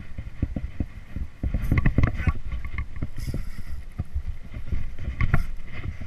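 Irregular knocks and rattles from handling a spinning rod and reel in a small boat, loudest about two seconds in, with a short hiss a little after three seconds.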